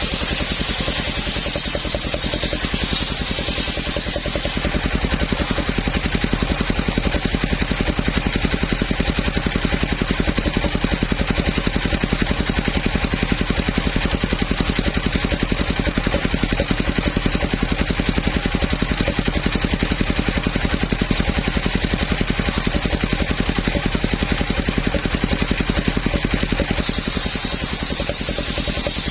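Homemade engine-driven circular sawmill running steadily while sawing a coconut palm trunk. The sound changes about four seconds in, getting a little louder and duller, and changes back near the end.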